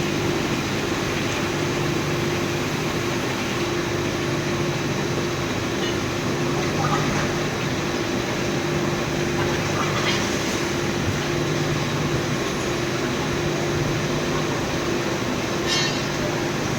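Steady industrial hum of an induction furnace melting steel, with constant low tones over a broad machine noise. A few brief sharper noises come through, about 7, 10 and 16 seconds in.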